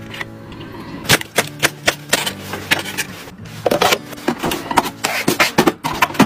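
Hard plastic gadgets being handled: a quick, irregular run of clicks, taps and rattles as containers slide and lids open and shut, densest in the second half.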